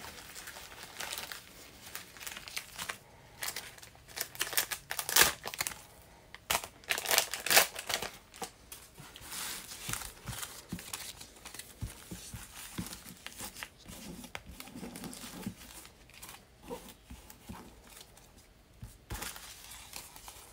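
Clear plastic packaging crinkling and rustling as hands work at it, in irregular bursts that are loudest about five to eight seconds in.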